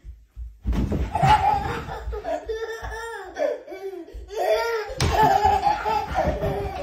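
Laughter with high, drawn-out squeals, starting about half a second in and breaking off briefly near the four-second mark.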